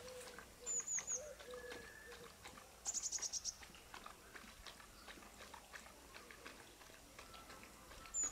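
Small songbirds calling in a garden: a group of about four high chirps about a second in, a rapid run of about eight notes around three seconds in, and another group of chirps at the end. Under them are faint clicks and rustles from a dog nosing and sniffing at the ground.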